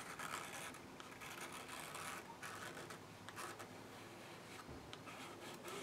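Plastic palette knife scraping and smearing thick acrylic paint across paper in a few faint strokes, with light clicks.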